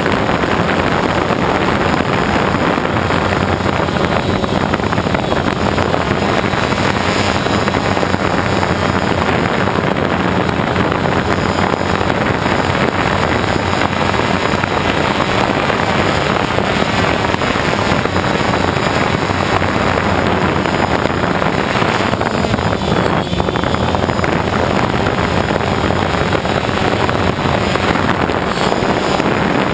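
Motors and propellers of a small radio-controlled FPV aircraft running steadily, picked up close by its onboard camera, with heavy wind noise rushing over the microphone.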